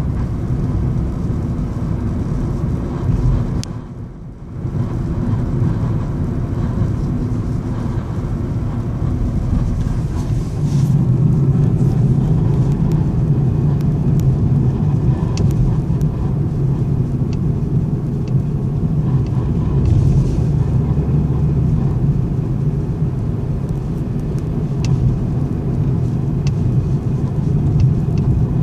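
2013 Ford Fiesta SE automatic running, its 1.6-litre four-cylinder making a steady low drone that dips briefly about four seconds in and grows louder from about a third of the way in. The owner reports a grinding, scratching noise coming from the engine.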